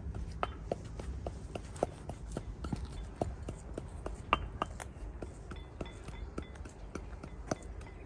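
Irregular sharp taps and clicks, a few a second and uneven in strength, over a steady low rumble.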